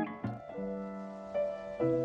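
Soft background music: a few slow, held notes, each new one entering over the fading one before it.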